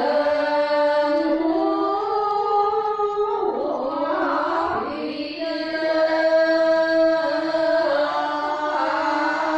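A group of Karen women singing a traditional tha chant in unison, holding long notes that step slowly from pitch to pitch, with a rougher, less even stretch about halfway through.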